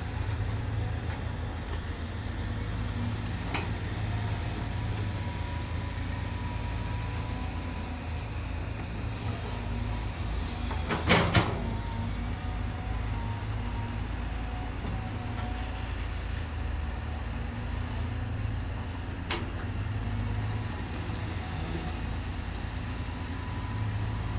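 Caterpillar hydraulic excavator's diesel engine running steadily under load as it digs and swings its bucket, with a faint whine over the drone. A quick run of loud, sharp knocks comes about halfway through.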